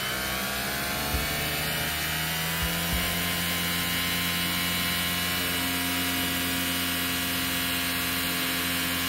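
Nespresso Vertuo Evoluo mid-brew, its motor spinning the coffee capsule at high speed while water is forced through it, giving a steady motor whine and hum. The pitch climbs a little over the first couple of seconds and then holds steady, with a few light knocks early on.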